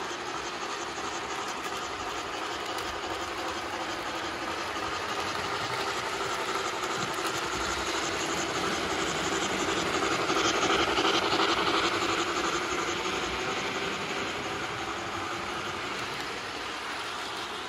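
Two HO scale model GS-4 steam locomotives and their passenger cars running on track, a steady running noise of motors and wheels on rail. It grows louder as the trains pass close, about ten to twelve seconds in, then eases off.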